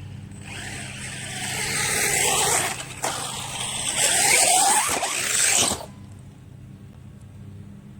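Electric RC monster truck running on a 3S battery, its motor whining up and down in pitch as it is throttled hard twice, with a noisy rush over dirt; the sound stops abruptly about six seconds in.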